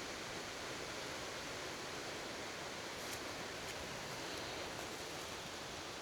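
Steady rush of running water: an even hiss with no breaks and no rise or fall.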